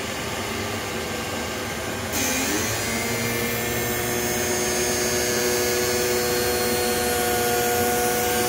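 Sparx skate sharpener's grinding wheel spinning up with a rising whine about two seconds in, then running steadily with a grinding hiss as it makes its passes along a hockey skate blade.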